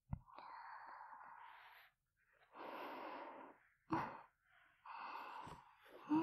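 A woman breathing slowly and breathily close to a binaural dummy-head microphone, with three long breaths. Short, sharp mouth sounds fall between them, near the start, in the middle and at the end.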